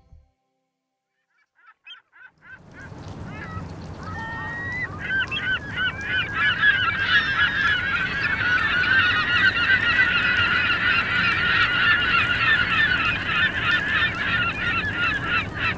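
A flock of gulls calling. The first scattered calls come after a moment of silence, and they build within a few seconds into a dense, loud chorus of overlapping cries over a low background noise.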